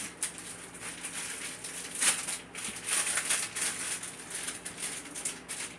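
Hands handling small craft items: irregular rustling and light clicking, with a sharper click about two seconds in.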